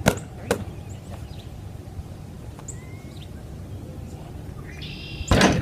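A ball bouncing twice on a hard surface near the start, then a loud clattering hit about five seconds in, as of the shot striking the hoop. Faint bird chirps in between.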